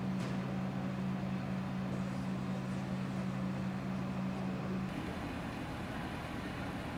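Engine running at a steady low hum over outdoor background noise; the hum cuts off suddenly about five seconds in.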